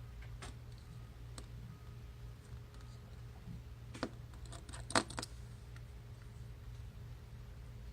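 Small clicks and taps of metal tools and parts handled on an opened iPhone 6 as its back camera is fitted, with a quick run of sharper clicks about four to five seconds in, over a steady low hum.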